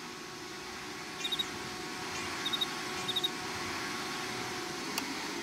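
Canister vacuum cleaner running with a steady hum and whoosh, switched off with a click near the end as its motor begins to wind down. Over it, a cricket chirps in short high trills three times.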